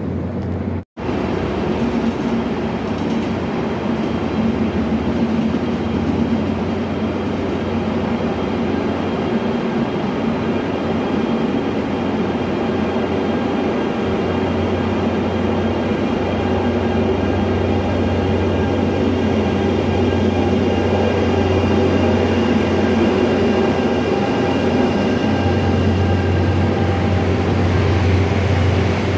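Locomotives moving slowly along the station tracks: a KORAIL electric locomotive with a 7600-series diesel locomotive. A steady running rumble carries several high whining tones and grows gradually louder.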